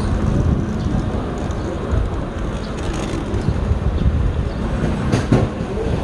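Outdoor street noise: a low, uneven rumble, with a couple of sharp clicks about five seconds in.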